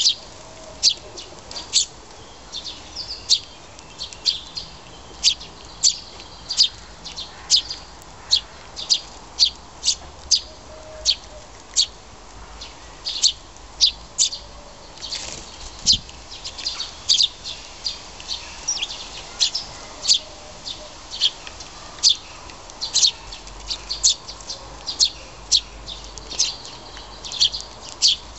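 Eurasian tree sparrow fledgling begging to be fed: short, high chirps repeated steadily, about one or two a second.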